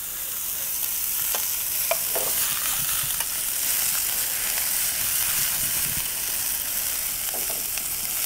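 Bacon, red pepper and leeks frying in oil in a non-stick pan with a steady sizzle while a metal ladle stirs them.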